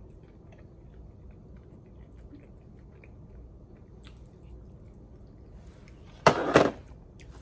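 A person quietly chewing a dumpling, with faint wet mouth clicks. About six seconds in comes a loud sudden handling noise lasting about half a second.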